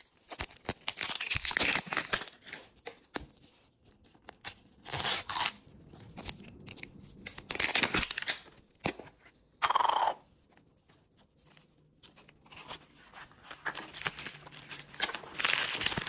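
Crinkly plastic wrapper of a Miniverse capsule ball being peeled and torn off, crackling and tearing in irregular bursts. Near the end a plastic inner bag is pulled open.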